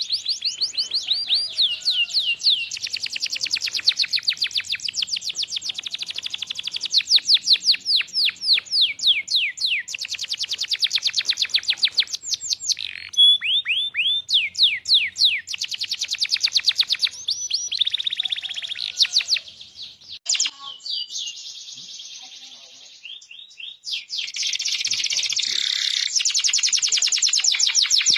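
Domestic canary singing a long song of fast trills and rolls: rapid, evenly repeated high notes in changing phrases. The song thins to quieter notes about two-thirds of the way through, then the rapid trilling picks up again.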